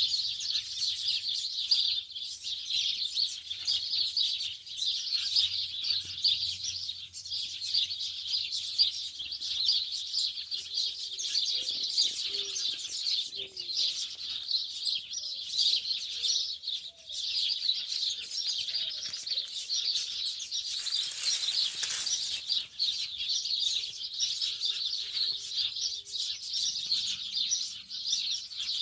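Many small birds chirping and chattering without pause, with a few faint, lower calls in the middle and a brief whoosh of noise about 21 seconds in.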